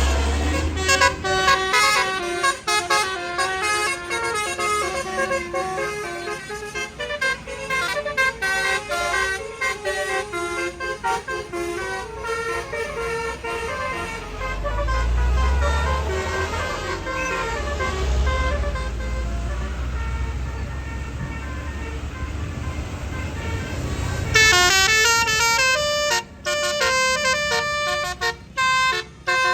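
Tour bus telolet 'basuri' musical horns playing quick multi-note tunes over and over. A bus engine's low rumble swells about halfway through, and a louder, higher-pitched horn tune cuts in suddenly near the end.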